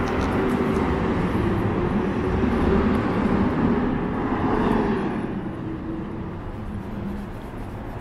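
Street traffic: a large vehicle passing close by, its low hum and road noise loud for the first few seconds, then fading away about five seconds in.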